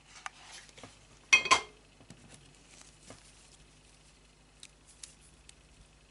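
Small handling noises: light clicks and rustling, then one sharp clink of a hard object about a second and a half in, the loudest sound. Soft taps and rubbing follow as crocheted petals are pressed onto a wire stem.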